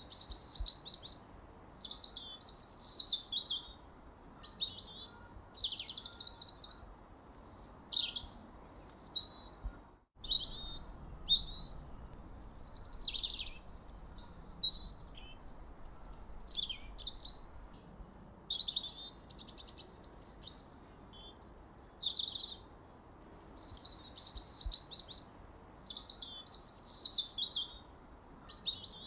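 Songbird singing: a continuous run of quick, high-pitched chirps and twittering phrases with short pauses between them, over a faint steady hiss. The sound cuts out completely for a split second about ten seconds in.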